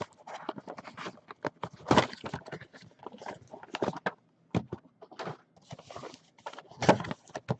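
Cardboard Topps Finest mini boxes being pulled out of their hobby boxes and stacked: a run of irregular light knocks and taps, with a longer scraping slide about six seconds in.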